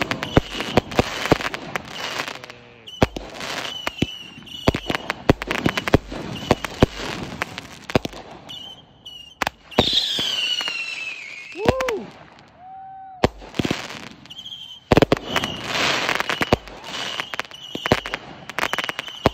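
A fireworks finale: consumer fireworks going off in a rapid barrage of bangs and crackles. About ten seconds in, a falling whistle sounds, followed by a short lull before the bangs pick up again.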